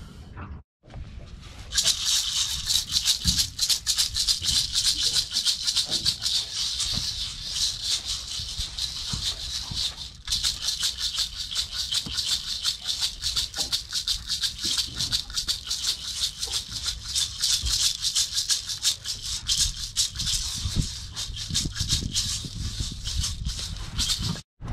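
A handheld rattle with a round head on a wooden handle, shaken fast and without a break: a dense, hissing rattle. It starts about two seconds in and runs until just before the end.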